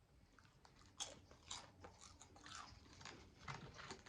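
A person biting and chewing crunchy food: quiet, irregular crunches that start about a second in and keep going.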